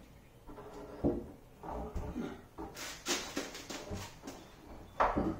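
Heavy wooden butcher block countertop being shifted and set down onto base cabinets by hand: wood scraping and knocking on the cabinet frames, with a sharp knock about a second in and the loudest knock near the end.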